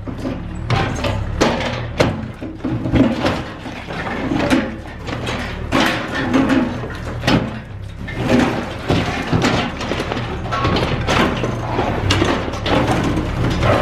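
Cat 305E2 mini excavator working on a concrete-and-rebar building: the engine runs steadily under load while repeated crashes, knocks and scrapes come from the bucket breaking and dragging gunite and steel debris.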